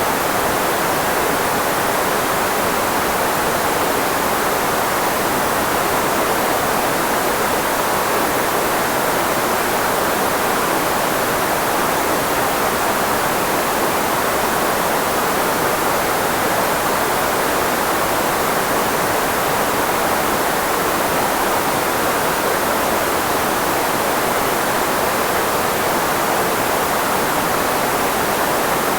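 Steady filtered white noise, shaped to mask the frequencies of the human voice, with most of its energy in the middle range. It holds one even hiss with no change.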